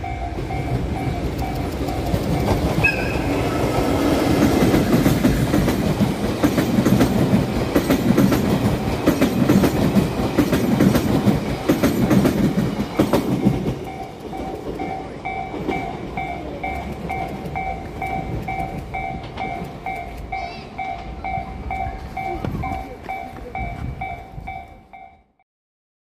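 An EF65 electric locomotive hauling Odakyu 8000 series cars passes on the track, with loud wheel-on-rail rumble and clatter, loudest in the middle. The level crossing's warning bell keeps dinging in a steady repeated pulse, heard clearly once the train noise drops away about fourteen seconds in.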